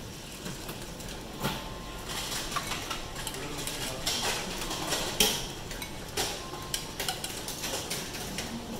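Tableware and utensils clinking and clacking during a meal: scattered light clicks, with one sharper clack a little past five seconds in.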